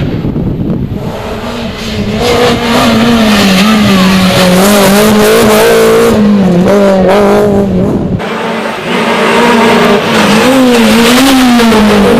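Rally car engine running hard at high revs, close by, its pitch wavering up and down as the driver works the throttle. About eight seconds in the sound drops briefly, then the engine comes back at high revs.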